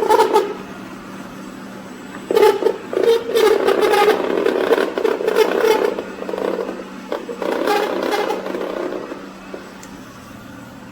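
Robot vacuum cleaner running with a steady hum, broken by two long bouts of louder whirring and scraping as its brushes and wheels work against the rug.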